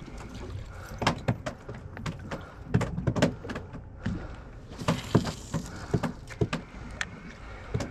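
Irregular knocks and clicks aboard a small boat drifting in neutral on open water, over a low steady rumble.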